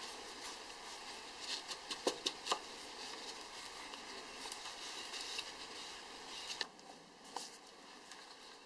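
Cloth rubbed briskly over a stained wooden drill handle: a steady soft rubbing with a few light clicks about two seconds in. The rubbing stops a little before the end.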